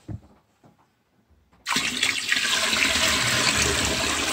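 Rainwater poured from a 5-gallon bucket straight into a toilet bowl to bucket-flush it, with no water supply to the tank. A steady rush of water begins about a second and a half in, after a brief knock at the very start.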